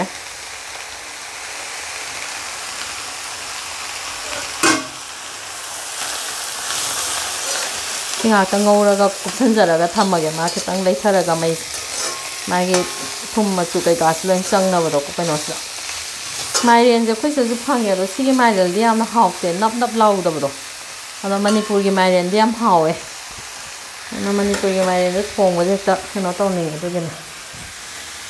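Pumpkin pieces sizzling in hot oil in a frying pan while a spatula stirs them. From about eight seconds in, the spatula's strokes give repeated bursts of pitched, wavering scraping over the sizzle, and there is a single sharp knock about five seconds in.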